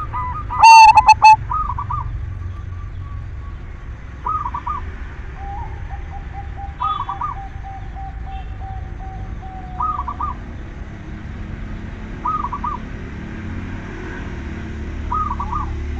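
Zebra dove (silver perkutut) singing: short bubbling coo phrases repeated every two to three seconds, with one very loud, close call about a second in. A lower, steady trill runs under the song from about five to ten seconds in.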